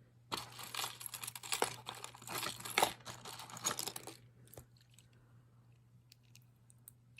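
Crinkly packaging being handled and crumpled for about four seconds, then a few light clicks.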